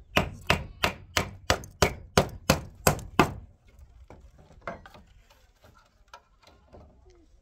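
A quick, even series of sharp knocks, about three a second, like strikes on wood. They stop about three and a half seconds in, leaving only a few faint clicks.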